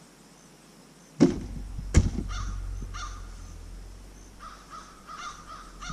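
A crow cawing, a short run of caws and then a longer string of them near the end. Two sharp knocks come about a second in, followed by a low rumble.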